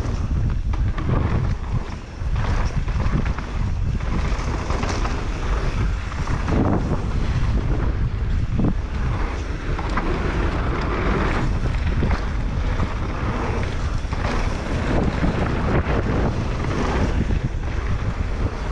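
Wind buffeting the microphone over the rolling noise and rattle of a mountain bike ridden down a dirt freeride trail, with frequent small knocks from bumps.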